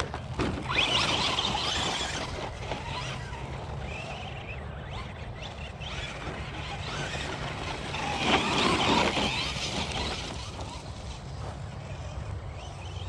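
Radio-controlled rally car driving over grass and dirt: its motor and tyres run throughout and swell louder about a second in and again around eight to nine seconds in, over a steady low rumble.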